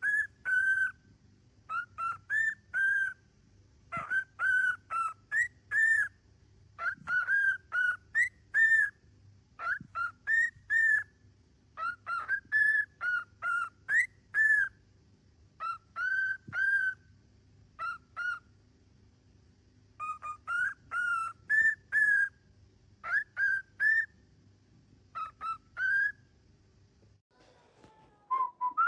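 Parrot whistling: short, slightly rising whistled notes, in quick clusters of two to four, repeated over and over and stopping near the end.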